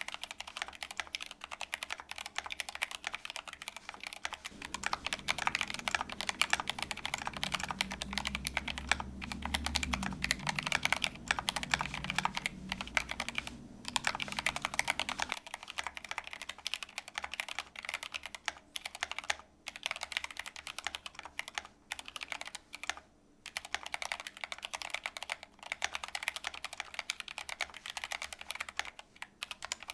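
Fast, continuous typing on a GMMK Pro mechanical keyboard with Glorious Gateron Black linear switches and PBT keycaps: a dense run of key clacks with a few short pauses. A low rumble sits under the typing for about ten seconds in the first half.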